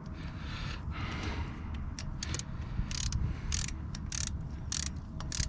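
Ratchet wrench clicking in short back-and-forth strokes, about two a second from about two seconds in, as it runs down the oil filter cover bolts on a Kawasaki KLX230R engine.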